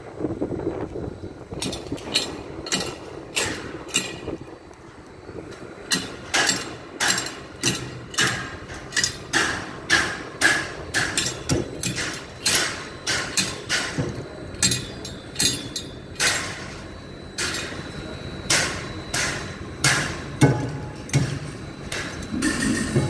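Construction-site hammering: repeated sharp hammer blows, sparse at first, then a steady run of about two a second, with a short lull part way through.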